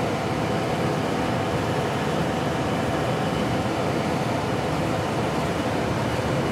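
Steady, unchanging drone of a running fan motor, with a faint hum running through it.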